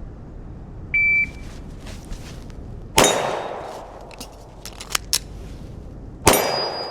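A shot timer beeps once. About two seconds later a Glock 43X 9mm pistol fires a shot, and a second shot follows about three and a third seconds after that, with a few faint clicks between them.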